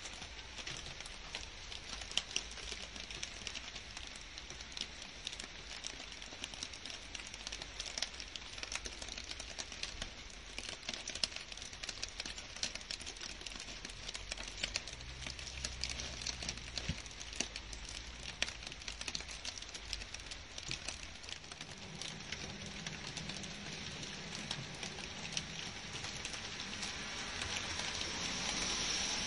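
Steady rain falling on leaves and grass, a dense patter of many separate drop hits. A low rumble joins in during the second half, and the rain grows louder near the end.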